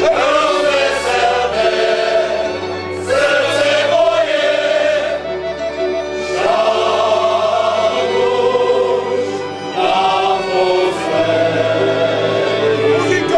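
Male folk choir singing a Moravian folk song in harmony, several men's voices together, in phrases of a few seconds with short breaks between them.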